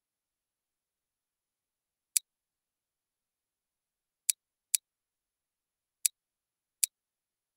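Computer mouse clicking: five short, sharp single clicks with silence between them, the second and third coming close together.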